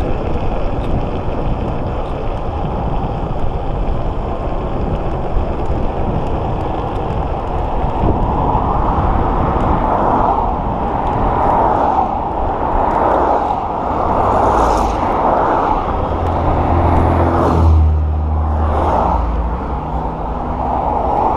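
Steady rumble of wind and road noise from riding an electric scooter along a city road, with cars passing one after another in the second half and a brief low engine drone about 17 seconds in.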